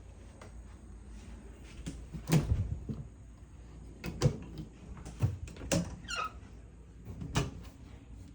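RV storage cabinet doors being opened and shut: about five knocks and clunks spread over several seconds, with a brief falling squeak about six seconds in.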